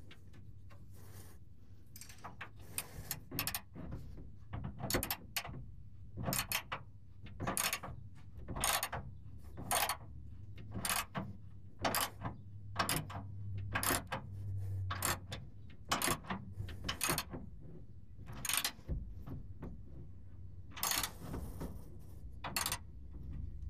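Ratchet wrench clicking in short repeated strokes, roughly one burst a second, as a rear shock mounting nut is run down.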